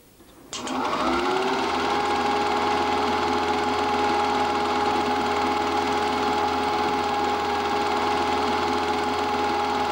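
Film projector starting up: its motor whirr comes in sharply about half a second in, rises in pitch for about a second, then runs at a steady pitch.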